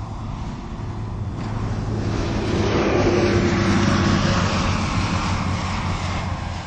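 Modified turbocharged Suzuki Hayabusa engine idling steadily, with a broad rush of noise that swells in the middle and fades toward the end.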